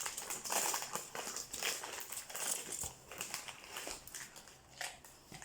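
Soft, irregular crinkling and crackling of hands handling cookie dough, candies and packaging, with small clicks scattered throughout.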